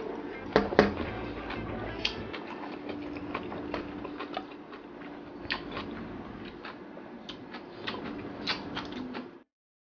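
Close-up eating sounds: wet chewing and lip smacks, with fingers mixing rice against a steel plate, making many small clicks and a few louder ones about half a second in. A faint steady hum lies underneath, and the sound cuts out abruptly near the end.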